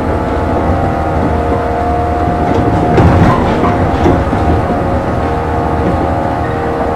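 Running sound of a JNR 115 series electric train, heard inside motor car KuMoHa 115-1557: a steady whine from its MT54 traction motors and gears over wheel-on-rail rumble. A louder clatter comes about three seconds in and another about four seconds in.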